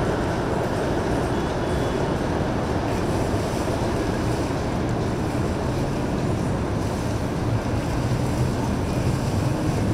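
Passing boat's engines running steadily over the rush of churned water: a constant rumble with no breaks.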